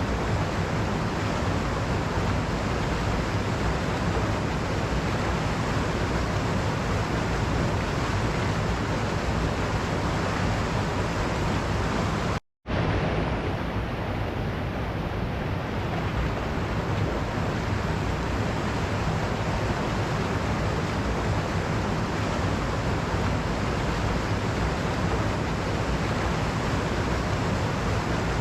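Waterfall rushing steadily. The sound cuts out for a split second about twelve seconds in, then resumes unchanged.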